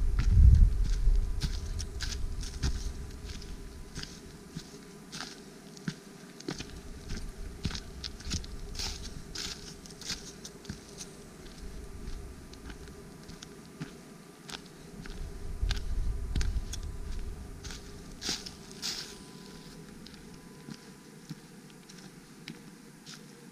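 Footsteps crunching and rustling on dry fallen leaves and a dirt path, in irregular crackly steps. Wind rumbles on the microphone near the start and again a little past the middle.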